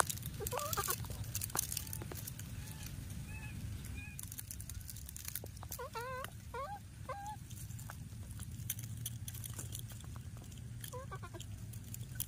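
Baby monkey giving short wavering calls in bursts: a pair about half a second in, a cluster of four or five around six to seven seconds, and another pair near the end. Dry grass crackles and rustles over a steady low rumble.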